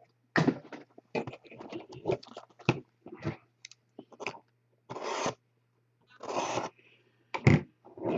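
Handling noise from a cardboard trading-card box and its foil wrapping: a run of short crinkles, taps and scrapes, with two longer rustling stretches about five and six and a half seconds in and a sharp knock or crinkle near the end.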